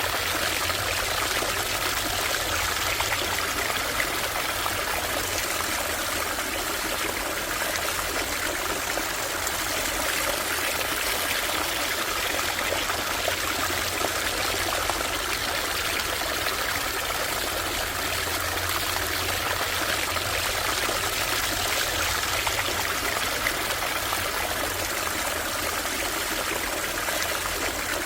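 Small stream or brook flowing and trickling steadily over stones.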